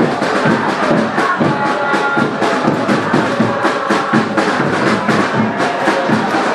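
Football supporters chanting and singing together to a beaten drum, with irregular drum strikes throughout.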